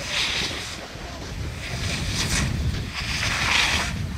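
Snowboard sliding and carving through soft spring slush, a hissing scrape that swells and fades with each turn, over wind rumble on the microphone.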